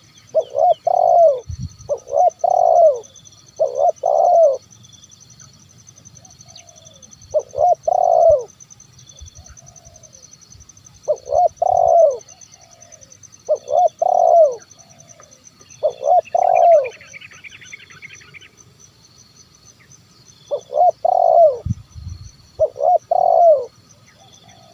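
Spotted dove (tekukur) cooing its 'kuk 1' song: about nine short phrases of a few low notes each, spaced one to four seconds apart. A faint steady high buzz runs underneath, and a brief chirping comes in about two-thirds through.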